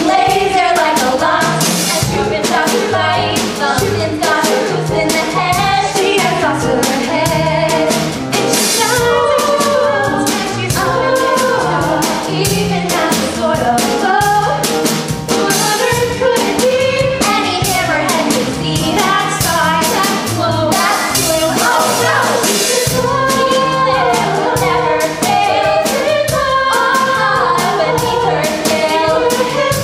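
Female chorus singing an upbeat pop show tune in several voices over accompaniment with a steady beat.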